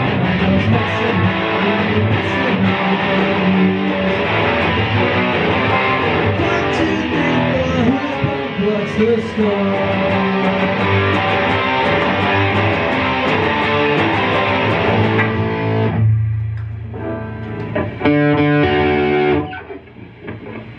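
Electric guitar played through an amplifier: chords strummed steadily, then about sixteen seconds in it thins to a ringing low note with a few picked notes near the end.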